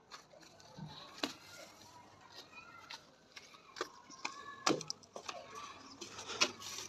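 Scattered sharp knocks and taps, several seconds apart, over faint distant voices.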